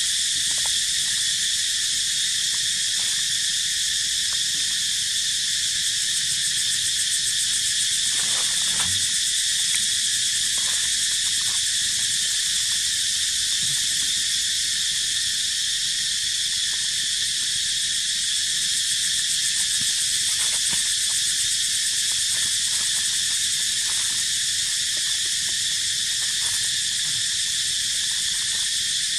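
A steady, loud chorus of insects, a high dense drone, with faint scattered crackles of dry leaves as monkeys move over the leaf litter.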